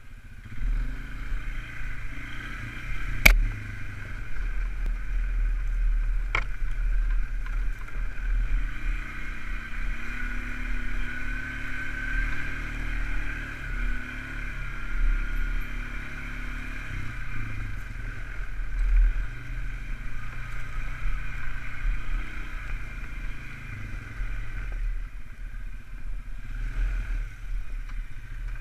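Polaris 335 ATV's single-cylinder four-stroke engine running as the quad is ridden over rough ground, with a sharp knock about three seconds in and a fainter one about three seconds later.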